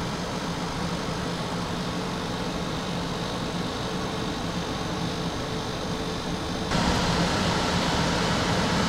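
Kesser 7000 BTU portable air conditioner running on low fan speed: a steady rush of air with a low hum. About seven seconds in it is switched to high fan speed and gets louder and hissier.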